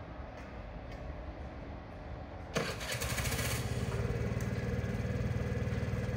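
Low steady rumble, then about two and a half seconds in a motorcycle engine starts with a brief loud burst as it catches and settles into a steady, fast-pulsing idle.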